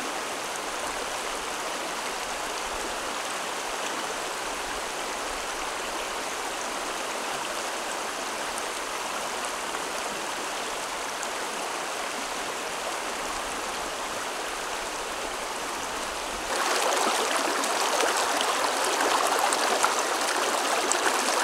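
Shallow, rocky stream flowing steadily over stones. It gets louder and closer about three-quarters of the way through.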